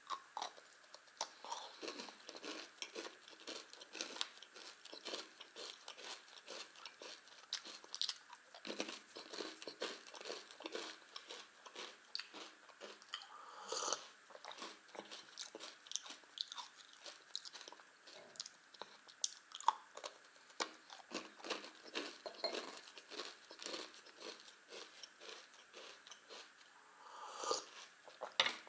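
Close-up crunching and chewing of crisp multigrain cereal candies with white glaze, steady and irregular throughout. About halfway through comes a sip of tea from a mug.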